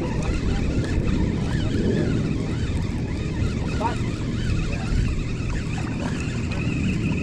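Steady wind noise buffeting the microphone on an open fishing boat, a low even rumble, with a faint steady high tone above it.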